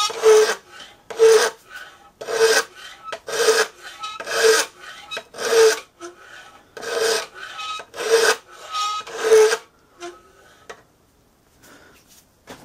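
Hand file cutting the bevel of a steel knife blade held in a file jig, in even push strokes about one a second, each with a ringing tone. About nine strokes, stopping about ten seconds in.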